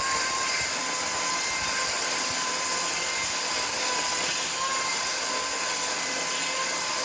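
Battery-powered electric chainsaw running at full speed, ripping lengthwise through a board of utility-pole timber: a steady, high-pitched motor whine with chain noise that holds throughout and cuts off suddenly at the end.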